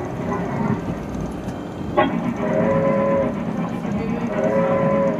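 Magic Roundabout train kiddie ride running, heard from inside its body: a steady low rumble from its drive, a sharp click about two seconds in, then two long horn-like toots from the ride's sound unit.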